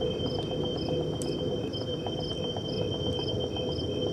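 Crickets chirping: short chirps pulsing about twice a second over a steady high trill, above a low, steady background noise.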